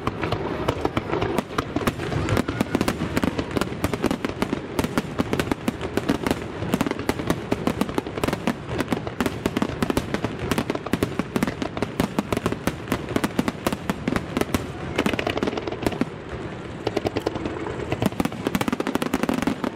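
Aerial fireworks bursting in rapid succession, a dense run of bangs and crackles several times a second, easing briefly about sixteen seconds in before picking up again.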